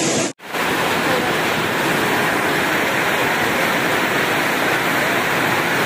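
Heavy wind-driven rain in a storm: a steady, dense hiss of downpour and gusting wind. It follows a brief dropout just after the start.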